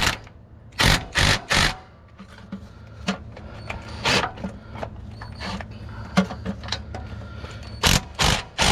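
An impact wrench run in short bursts, driving a starter's mounting bolts up gently: three quick bursts about a second in, one more around four seconds, and two near the end, over a steady low hum.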